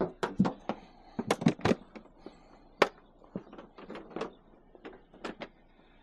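Scrap metal being handled and loaded: a run of irregular sharp clanks and knocks, the loudest clustered in the first two seconds.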